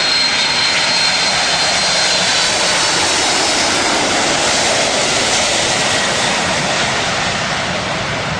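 Jet aircraft engines running, a loud steady roar with a faint high whine early on, easing a little near the end.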